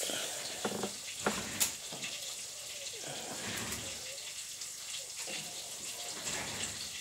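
Crappie fillets frying in hot oil: a steady sizzle with a few crackling pops in the first two seconds.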